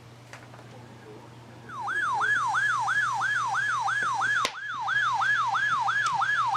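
Electronic siren yelping: a fast rising-and-falling wail of about two and a half cycles a second. It starts about two seconds in, dips briefly in the middle, and cuts off abruptly at the end.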